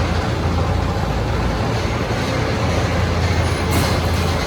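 Steady loud rumble and rattle of a ride vehicle running on rails.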